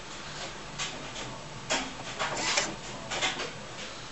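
Epson SX405 inkjet printer running its ink-charging cycle after new cartridges are fitted: the print-head carriage shuttles and the mechanism runs in a series of short bursts, the longest and loudest about two to two and a half seconds in.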